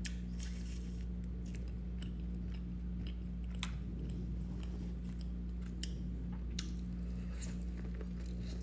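Close-miked chewing and biting of boiled seafood, with scattered wet clicks and small crunches at an irregular pace over a steady low hum.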